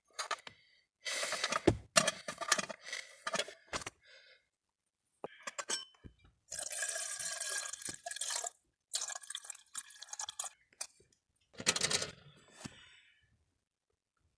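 Cookware clinking and water being poured or dripping, in a series of short separate bursts with a longer steady stretch about halfway through.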